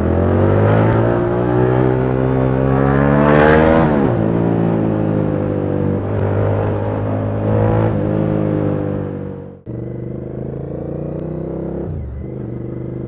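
Motorcycle engine accelerating hard, heard from the rider's helmet with wind rush. Its pitch climbs, drops at a gear change about four seconds in, and climbs again. About nine and a half seconds in it breaks off abruptly, and a steadier, lower engine note follows.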